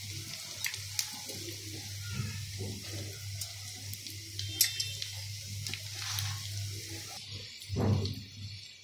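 Kachoris deep-frying in hot oil in a wok, a steady sizzle with a few sharp clicks of metal tongs against the pan. A short loud bump near the end, over a steady low hum.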